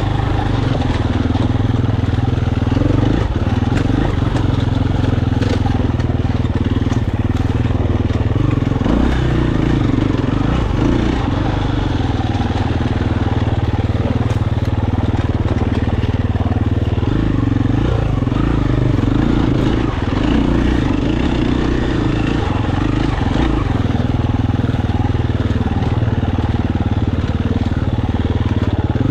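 KTM 350 four-stroke single-cylinder enduro bike engine running as it is ridden off-road, its note rising and falling with the throttle.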